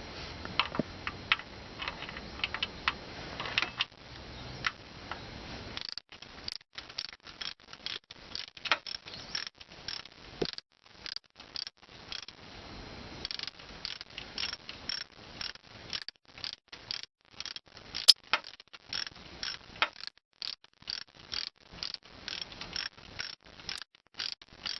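Clutch release mechanism (release cylinder pushrod and release fork) clicking and creaking over and over as the clutch is worked. This is the abnormal noise that comes when the clutch is disengaged. For about the first six seconds it sits over a steady running noise; after that come rapid, irregular clicks with brief silent gaps between them.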